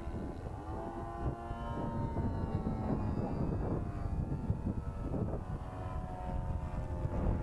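Nitro glow engine of a radio-controlled model airplane buzzing in flight, its pitch drifting slowly as the plane moves about the sky, with wind noise on the microphone underneath.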